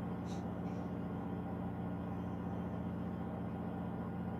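Steady low drone of diesel engines from a bulk carrier and its tugboats manoeuvring during berthing, with a few steady humming tones and no change in level. A brief faint high chirp comes about a third of a second in.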